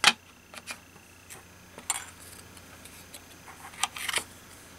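Light handling sounds on a craft table: a sharp knock right at the start as something is set down, then a few soft clicks and taps. A metal spoon scrapes and scoops embossing powder in a plastic tub about four seconds in.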